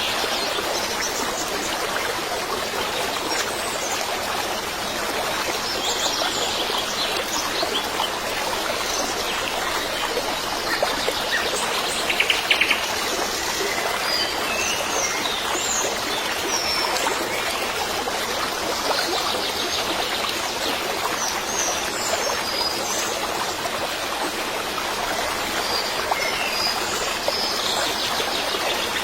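Steady rushing noise with small birds chirping at scattered intervals over it.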